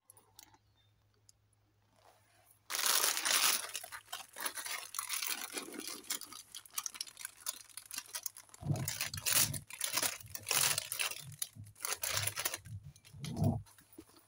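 Deflated latex balloons rustling and crinkling as they are stirred and dropped onto a heap, starting a couple of seconds in, with soft thumps in the second half.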